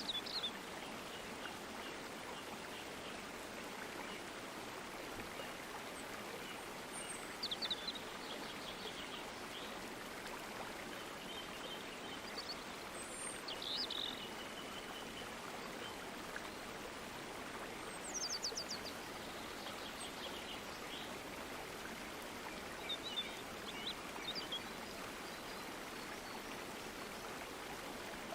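Steady rushing of flowing stream water, with short, high bird chirps and calls every few seconds.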